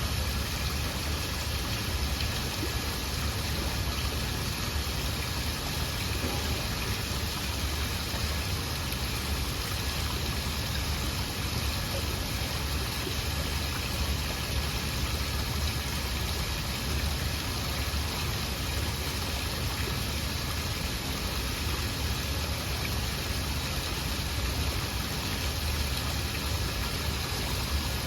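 Waterfall: a steady, unbroken rush of falling water with a strong low rumble.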